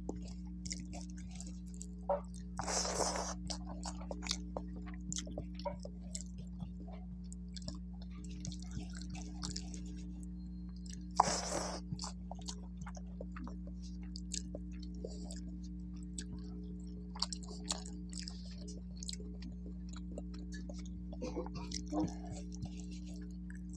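Close-miked chewing and mouth sounds of someone eating fish and rice, with two louder crunches about three and eleven seconds in, over a steady low electrical hum.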